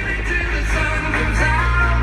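Rock song with singing over a heavy, steady bass, played loud as a show soundtrack.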